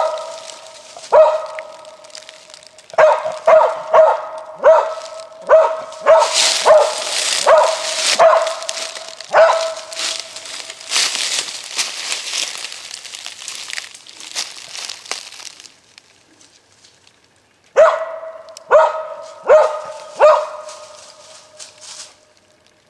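Coon dog barking at a tree with a treed raccoon: a quick string of about fourteen sharp barks, then four more after a short pause. Rustling and crunching of dry leaves and brush through the middle.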